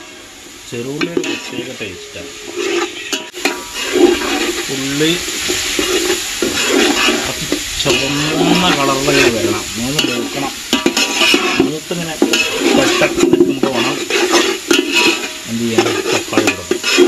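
Mutton rib pieces sizzling as they fry in a pan and are stirred, with scraping and frequent clicks against the pan.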